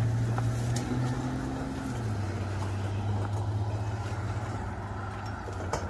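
Motor vehicle engine running with a low, steady drone that slowly fades, with a sharp click near the end.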